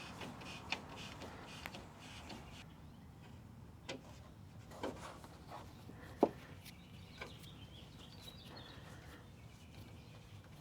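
A few light clicks and knocks from hand work fitting the grille's new screws and clips, spaced a second or more apart, with the loudest knock about six seconds in.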